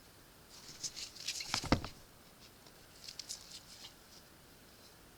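Hands turning over a glass Ramune bottle: light rustling and small clicks, with one sharper knock a little under two seconds in, then a few fainter clicks.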